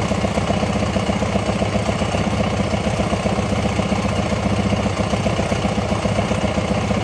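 Yamaha WR450F's single-cylinder four-stroke engine idling steadily in neutral, just after being started, with an even beat of firing pulses.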